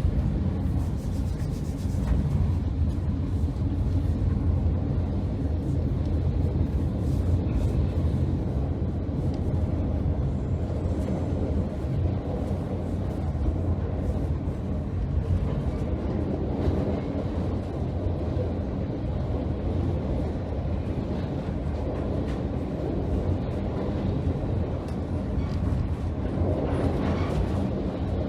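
Passenger train running, a steady low rumble of the cars and their wheels on the rails with occasional faint clicks, as it climbs a steep grade.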